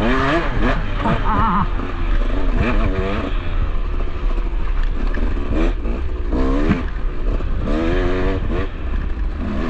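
KTM dirt bike engine being ridden, its pitch rising and falling again and again as the rider works the throttle and shifts.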